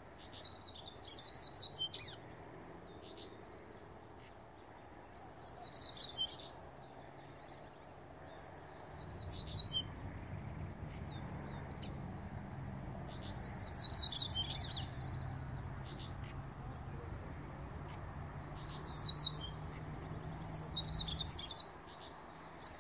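Male double-collared seedeater (coleiro) singing: short phrases of fast, high twittering, repeated about six times a few seconds apart.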